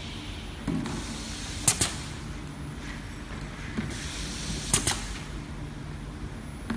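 Automatic labelling machine running as plastic jugs pass on its conveyor: a steady hum and hiss, broken twice by a sharp double click, about three seconds apart, each with a swell of hissing around it, as one jug after another is labelled.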